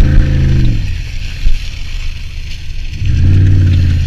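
Truck engine towing a sled through snow. Its revs fall away in the first second, there is a single knock about a second and a half in, and the engine revs up again about three seconds in and holds.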